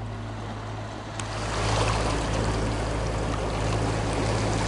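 Catamaran under way: water rushing along the hulls over a steady low hum, the rushing growing louder about a second in.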